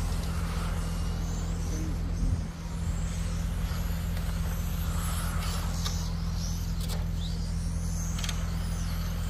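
Radio-controlled race cars running on a track, their motors making high whines that rise and fall in pitch as the cars pass, over a steady low rumble.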